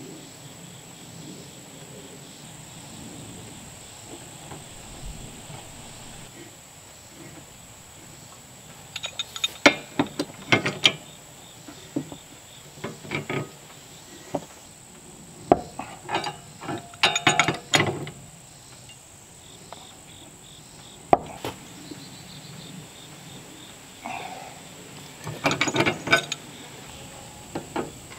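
Scattered bursts of metallic clinks and rattles as steel gas pipe and fittings are handled and fitted together, with the loudest clusters in the middle and near the end. Under them runs a steady high insect drone.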